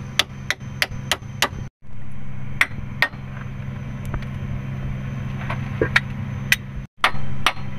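Torque wrench ratcheting in quick clicks, then slower single clicks, as the 19 mm bolts on a motor grader's circle rotation gear cover are tightened, over a steady low hum.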